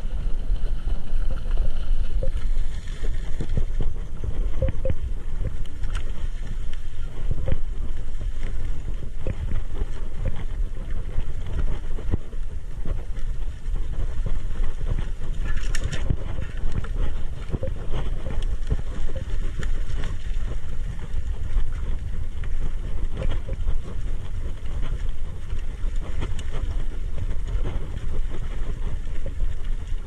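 Onboard sound of a mountain bike riding a dirt single track: wind buffeting the camera microphone over a steady rumble of tyres on the trail, with constant small clicks and rattles from the bike and one sharper hit about halfway through.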